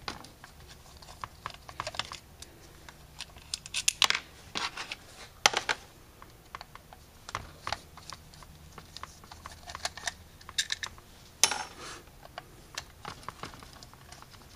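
Irregular small metal clicks and knocks from the parts of an aluminium Autolite 4100 four-barrel carburetor being handled and taken apart, with a few louder knocks among them.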